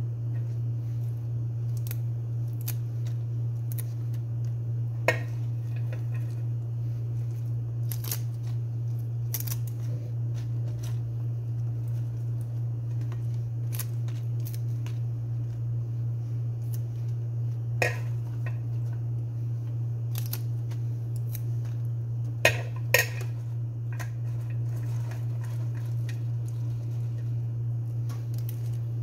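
Stems being trimmed off jarjeer (arugula) leaves, heard as scattered sharp snips and clicks, with a close pair about two-thirds of the way through. A steady low hum runs underneath.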